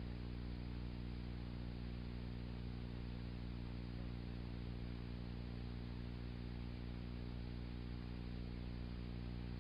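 Steady low electrical hum with a stack of overtones over an even hiss, with no speech, music or other events: the noise floor of an old analogue videotape transfer.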